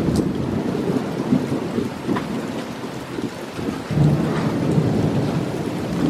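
Thunderstorm: heavy rain falling with a low rumble of thunder that eases a little in the middle and swells again about four seconds in, with a few sharp individual drops.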